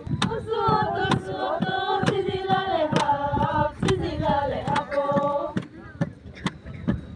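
Rice being pounded with long bamboo pestles, a sharp wooden knock about twice a second, under a group of women singing a chant together. The singing stops about five and a half seconds in while the pounding keeps going.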